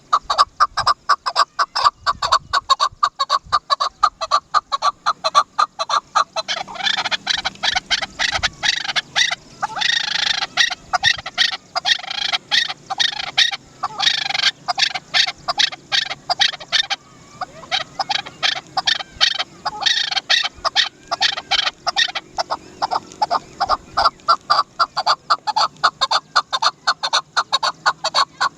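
Chukar partridge calling: a long, unbroken run of rapid chuck notes, about four a second, with stretches where the calls grow louder and more crowded.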